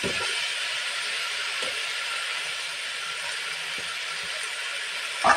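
Chopped vegetables sizzling in hot oil in an aluminium kadai with a steady hiss, while a metal spatula turns them with a few light scrapes. A sharper knock of the spatula sounds near the end.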